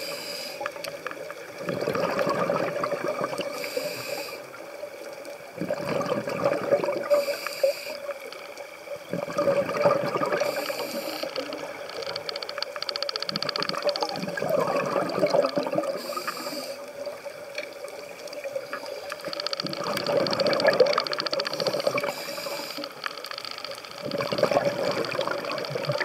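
Scuba diver breathing through a regulator, heard underwater: a short hiss on each inhale, then a louder bubbling rush of exhaled air, repeating about every four seconds, over a faint steady hum.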